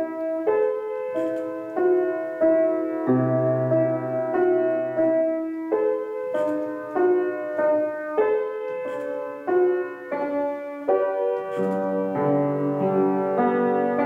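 Grand piano played solo: a gentle piece of chords and melody, a new chord or note about every half second to second, with lower bass notes filling in near the end.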